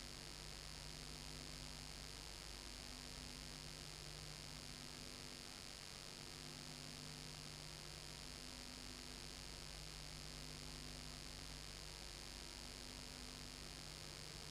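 Steady low electrical hum with hiss, and a faint tone that pulses on and off about every second and a half; no sound of the sea or people.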